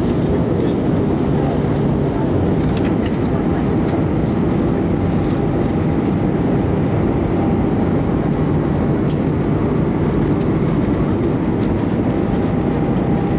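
Steady cabin noise of an Airbus jet airliner on approach: engine noise and rushing airflow heard from a seat by the wing, with a faint steady hum running through it.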